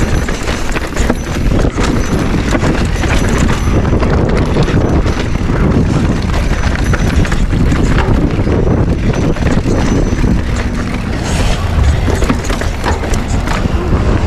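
Mountain bike rattling and clattering over a rocky trail: rapid irregular knocks from the tyres, frame and chain on stones, over a steady rumble of wind on the camera's microphone.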